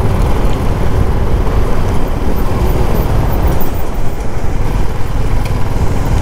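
Riding noise of a motorcycle on the road: steady wind rush and low rumble on the rider's microphone, with the bike's running sound underneath.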